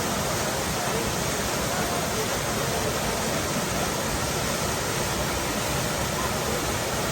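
Waterfall: falling water rushing in a steady, unbroken hiss across all pitches.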